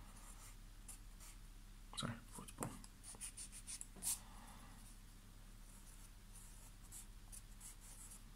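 Pencil writing on a paper workbook page: a couple of light taps, then short scratchy strokes as a word is written, all faint.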